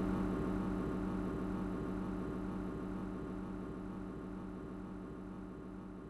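Microwave oven running: a steady low electrical hum that slowly fades away.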